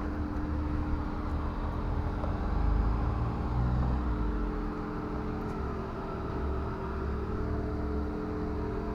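A steady mechanical hum with several held tones over a low rumble that swells and fades, as from a running motor with vehicles nearby.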